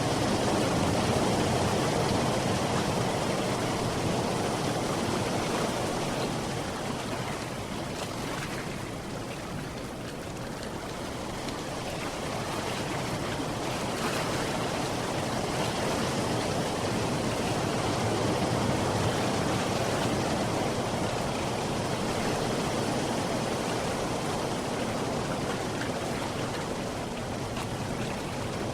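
Sea waves washing continuously, a steady rush that swells and eases slowly over many seconds.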